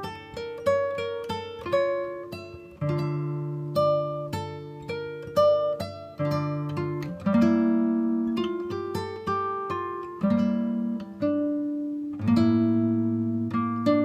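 Background instrumental music: a plucked guitar picks a melody of sharply attacked, fading notes at an even pace over held bass notes.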